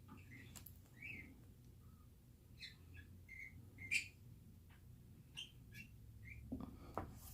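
Faint, scattered short bird chirps. A few soft rustles and taps come near the end.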